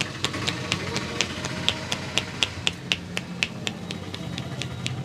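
A barber's hands clapping and striking during a head massage, sharp claps at a steady rhythm of about four a second, over a low steady hum.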